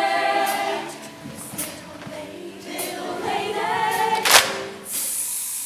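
Show choir singing a held chord with band accompaniment, then a second sung phrase. About four seconds in comes a sharp crash, followed by a steady hiss-like wash.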